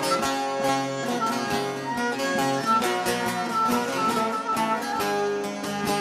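Two bağlamas (long-necked Turkish saz lutes) playing an instrumental passage of a Turkish folk tune: a quick, continuous run of plucked notes.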